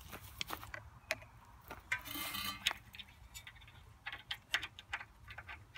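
Hand tools working on metal: irregular light metallic clicks and taps, with a short rasping burst about two seconds in, as bolts are worked loose on a riding mower's starter.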